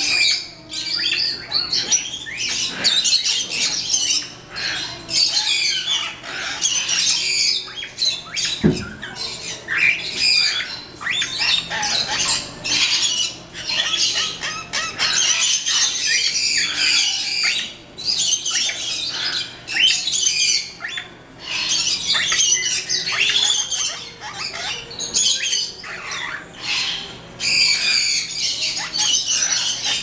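Cockatiels and other small parrots calling: a steady run of overlapping high chirps and squawks. A single low thump about nine seconds in.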